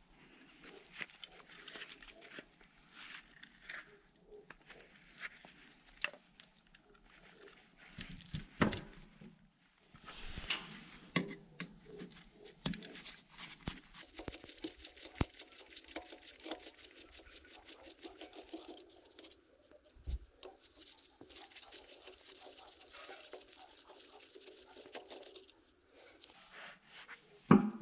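Hands working on a disassembled car alternator: clicks, knocks and scraping of metal parts and tools. About halfway in, a long run of rapid, even ticking starts, and a louder knock comes near the end.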